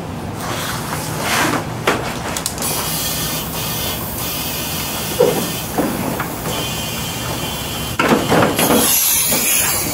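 Compressed air hissing through an air-hose inflator chuck into a scooter's front tire after a new valve stem is fitted, with a few short knocks of the chuck on the valve early on. The hiss gets louder for a second or so near the end.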